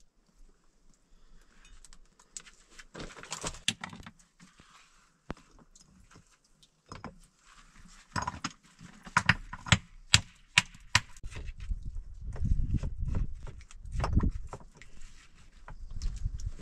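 Stones being handled and set in a dry-stone wall: sharp clacks of stone knocking on stone, many in quick succession from about eight to eleven seconds in, then heavier thuds and grinding as larger stones are shifted into place.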